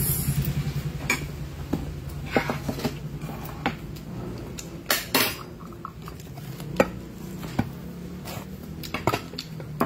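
A metal spoon clinking and scraping against a bowl and a glass jar while eating: short, sharp clinks at uneven intervals, about one a second.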